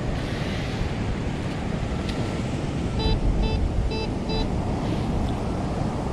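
Steady rumble of wind and surf on the microphone, with a metal detector giving four short, evenly pitched beeps about three seconds in as it sounds off on a buried target.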